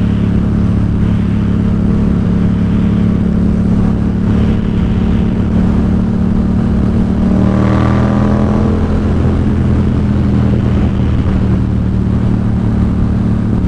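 Yamaha XSR700's 689 cc parallel-twin engine, fitted with a Two Brothers SR1 aftermarket exhaust, running steadily at road-cruising speed. The engine note swells briefly about eight seconds in.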